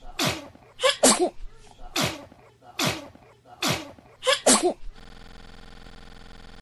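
Baby's short, sharp vocal bursts, each falling steeply in pitch, about one a second and some in quick pairs. About five seconds in they stop, and a steady hum follows.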